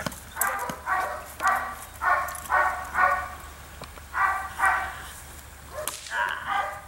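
A dog barking in quick runs of short barks, about two a second, with a pause of about a second near the middle of the run.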